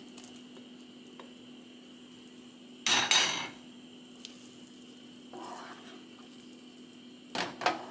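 Cooking utensil scraping and clinking against a pan as sautéed peppers and carrots are tipped back into the simmering sauce. One loud scrape comes about three seconds in, with a click and softer scrapes later, over a steady faint hum.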